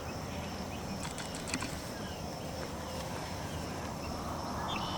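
Steady outdoor background noise with faint bird chirps and a few light clicks.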